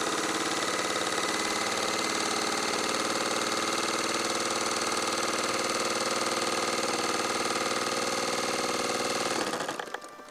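YS 91 FZ supercharged four-stroke glow engine of a model P-51 running at a steady high speed, its pitch holding constant, then cutting off about a second before the end.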